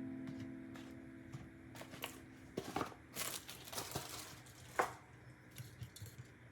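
Plastic grocery packaging crinkling and rustling as items are handled and put away, with a few sharp clicks and knocks. A guitar chord fades out at the start.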